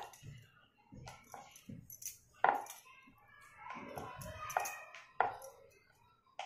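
Rolling pin rolling and knocking on a round stone rolling board as puri dough is rolled out, with glass bangles clinking; a few sharp clicks stand out about two and a half, four and a half and five seconds in.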